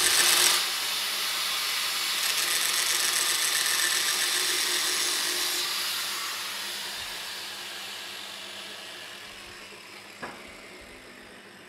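Angle grinder briefly grinding the edge of a shortened camshaft VANOS gear as it spins in a drill press, deburring the cut. The grinder's high whine then fades slowly and falls in pitch as it coasts down, with a single click about 10 seconds in.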